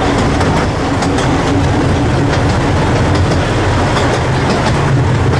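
Diesel locomotive on a miniature railway running with a steady low engine drone, its wheels clicking over the rail joints.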